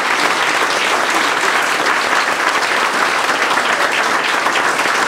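An audience applauding, with steady, dense clapping.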